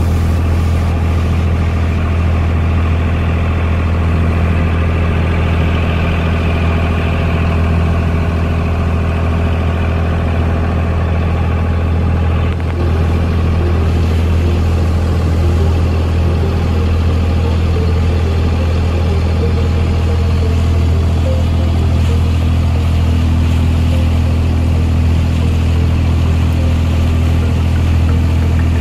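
Diesel engine of a wooden abra water taxi running steadily as the boat crosses the creek, a deep, even drone.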